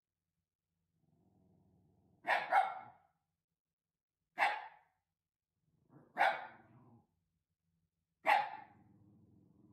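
Shiba Inu watchdog barking in alarm: a quick double bark, then three single barks about two seconds apart, with low growling in between.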